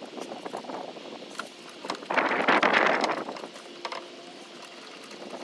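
Hand work on fasteners and a bracket under a van's steel floor: scattered metal clicks and taps, with a louder rough scraping rustle about two seconds in that lasts about a second.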